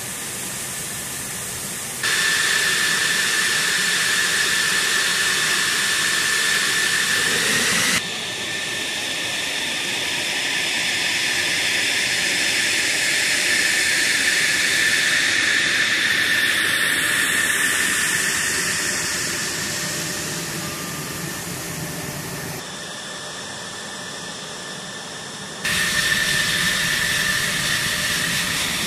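F-16 Fighting Falcon's jet engine running at taxi power: a steady high whine over a rushing hiss. The level and tone shift abruptly a few times, and midway the tone sweeps downward as the jet taxis past.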